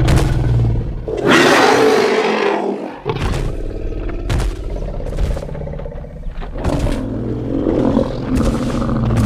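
Designed dinosaur-call sound effect for Sinotyrannus: a deep growl, then a loud breathy roar about a second in, followed by lower rumbling growls broken by several sharp clicks.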